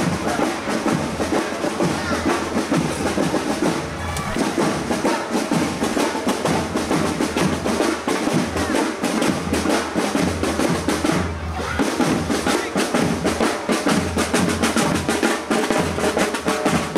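Parade drumming with music: fast, dense snare and bass drum strokes with rolls, going on without a break.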